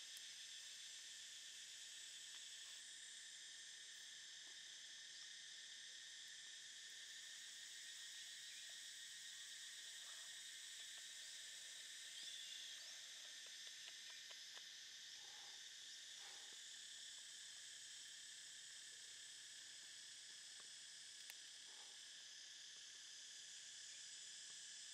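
Faint, steady chorus of insects, with a few soft knocks around the middle.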